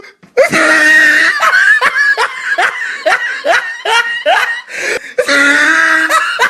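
Loud laughter: a long drawn-out 'haaa', then a quick run of falling 'ha-ha-ha' about three a second, ending in another long held laugh near the end.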